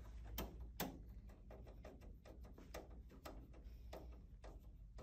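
Faint clicks and taps of a screwdriver driving the screw that holds a video capture card's bracket into the metal case of a DVR, with two louder clicks in the first second.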